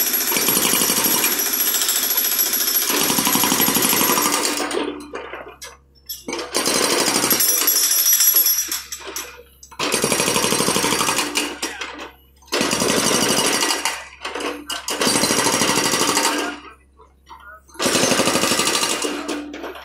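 Hydraulic breaker on a John Deere compact excavator hammering concrete with rapid blows. It runs continuously for about five seconds, then comes in five shorter bursts of a few seconds each, with brief pauses between them.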